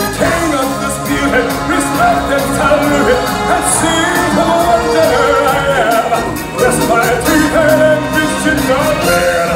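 Upbeat stage-show music with singing voices over it.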